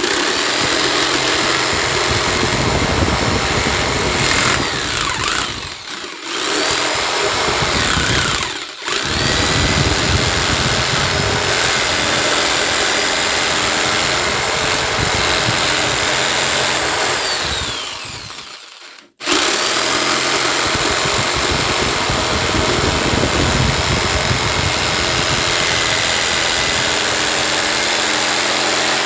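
Electric jigsaw cutting a small wooden board, its motor running steadily with two brief dips. About two-thirds of the way through it winds down and stops for a moment, then starts up again and carries on cutting.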